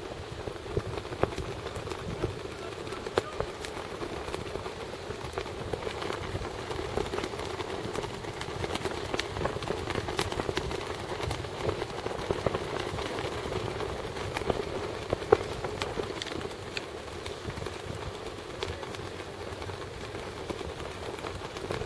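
Steady wind noise buffeting the camera microphone, with scattered sharp clicks and crackles; the loudest click comes about fifteen seconds in.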